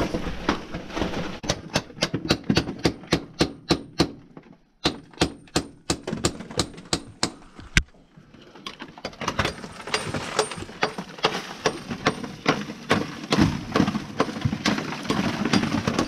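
Hand hammer striking rock in quick runs of sharp taps, about five a second, with short breaks about four and eight seconds in: chipping at a mine's rock face for ore.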